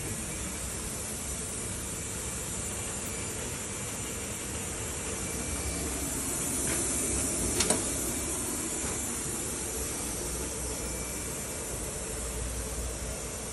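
Steady hissing noise that swells a little about halfway through, where two sharp clicks sound close together.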